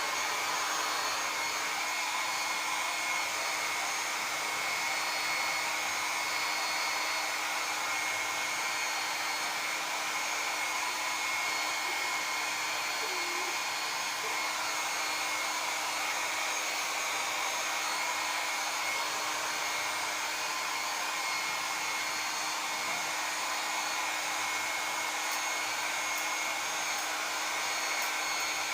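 Handheld hair dryer running steadily, blowing air with an even rushing hiss and a faint steady whine, drying wet hair.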